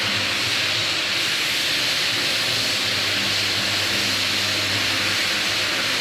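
Rotary floor buffer sanding a hardwood floor with 80-grit abrasive: a steady motor hum under a loud, even hiss of the abrasive on the wood.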